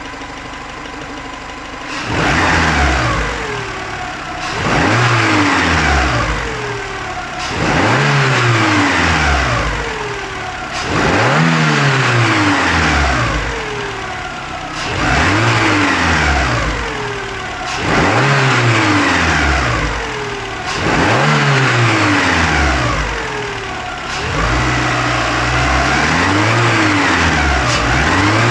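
Renault Clio II 1.2 16V four-cylinder petrol engine revved again and again while stationary: a short idle, then about eight blips of the throttle, each climbing and falling back, the last held a little longer. It makes the strange noise that appeared after its timing belt was replaced.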